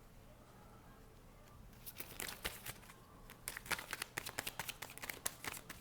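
Tarot cards being shuffled by hand: a quick run of card snaps and rustles that starts about two seconds in and grows busier.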